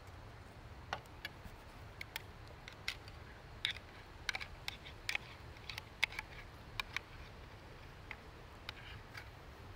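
Irregular light clicks and ticks, roughly two a second, over a faint low rumble.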